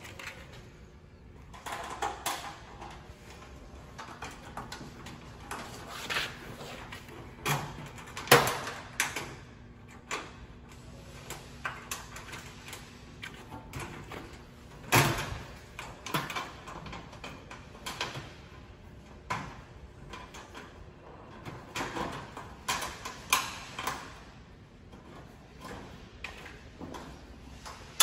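Sheet-metal panels of a gas grill's cart knocking and rattling as the back wall is fitted and its screws are started by hand: irregular clicks and knocks, the loudest about 8 and 15 seconds in.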